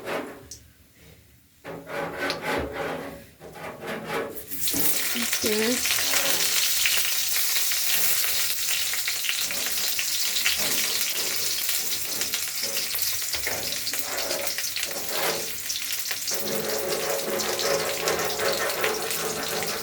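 Hot oil sizzling in a kadai as whole spices fry for a tempering (phoron). A few light clicks at first, then the sizzle starts suddenly about four and a half seconds in and keeps going steadily.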